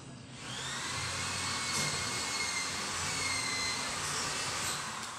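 A motor's whine over a rushing noise, swelling up about half a second in, holding steady with a slight wavering in pitch, and easing off near the end.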